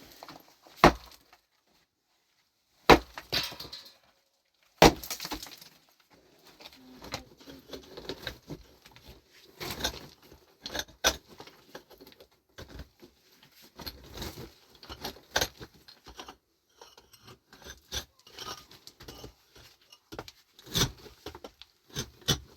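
Hand tools working rock and stones: three loud, sharp strikes about two seconds apart, then a busy run of smaller clinks and knocks.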